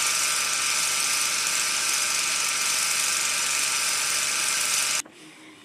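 Film projector sound effect: a steady whirring rattle that cuts off suddenly about five seconds in.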